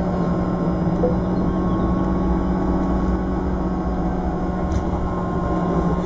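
Škoda 28 Tr Solaris trolleybus running at a steady speed, heard inside the passenger saloon: a steady electric-drive hum with faint steady whine lines over road and running noise.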